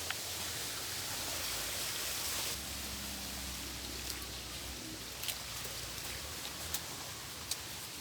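Running water splashing steadily, a constant hiss with a few sharp ticks of drops landing.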